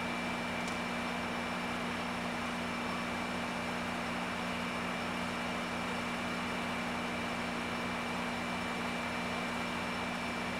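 An Amtrak California bilevel passenger train standing at the platform, giving a steady mechanical hum with a thin high whine above it.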